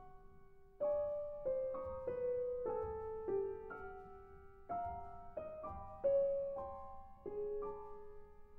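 Solo piano playing a slow contemporary classical piece: notes and chords struck one after another and left to ring and fade, a fresh attack every half second to a second. It starts soft, with a louder chord about a second in.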